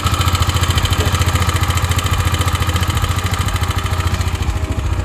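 KTM Duke 390's single-cylinder engine idling on a cold start, with a fast, even ticking pulse. The owner calls the noise abnormal and traces it to a faulty cam chain tensioner.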